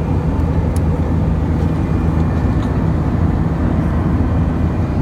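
Cabin noise of an Airbus A320 climbing after takeoff, heard from a window seat beside the engine: the steady low rumble of its IAE V2500 turbofans mixed with rushing air.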